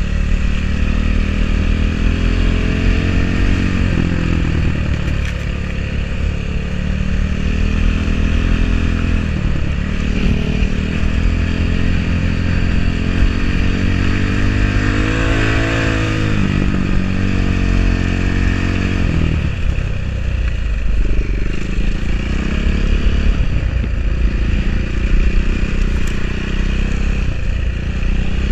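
Four-stroke enduro motorcycle engine under way, its pitch repeatedly rising and falling with the throttle, climbing highest and dropping back about halfway through.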